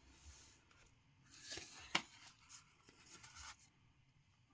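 Faint handling sounds of a coin presentation box being opened: the lid lifted off and a paper certificate card rustled as it is picked up, with one sharp tick about two seconds in.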